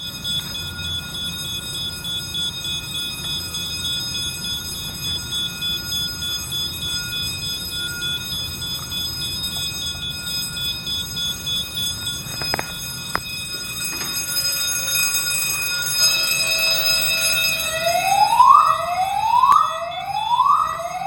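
Fire suppression alarm panel under test: a pulsing electronic tone, then two sharp clicks about twelve and thirteen seconds in. About eighteen seconds in, the alarm sounder starts a loud rising whoop that repeats about every three-quarters of a second.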